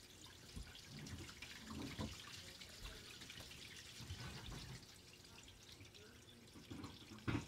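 Faint handling noise: small clicks and rustles as the opened fitness tracker is turned in the fingers, with one sharper knock near the end.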